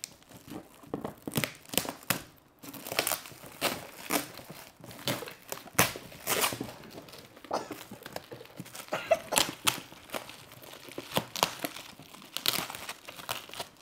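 Shiny metallic gift-wrap paper crinkling and tearing as it is pulled off a large box by hand, in a run of irregular sharp crackles.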